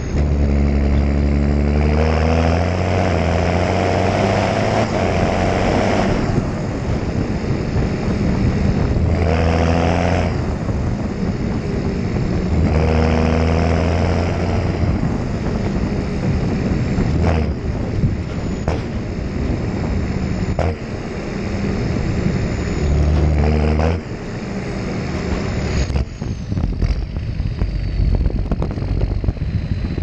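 John Deere tractor engine running as the tractor drives along a farm track, its note growing stronger in spells as it pulls harder, with steady wind rush on the microphone.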